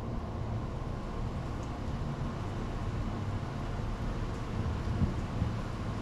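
Wind buffeting the microphone outdoors, a steady low rumble.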